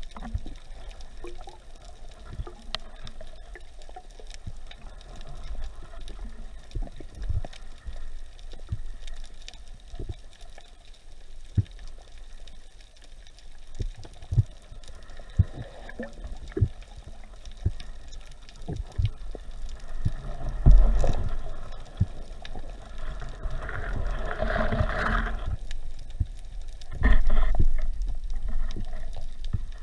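Muffled water noise heard underwater: a low rumble with scattered knocks and clicks, and louder bubbling surges about two-thirds of the way in and again near the end.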